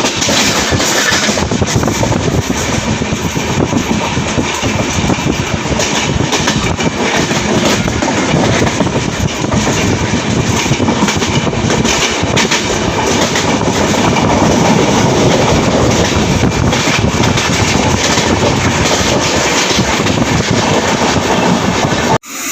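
Passenger train running at speed, heard from on board: a loud, steady rush of rolling and wind noise with the wheels clattering over rail joints. It cuts off suddenly near the end.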